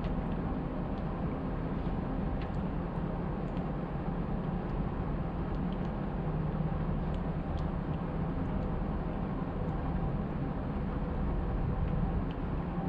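An engine idling steadily, with faint high clicks here and there.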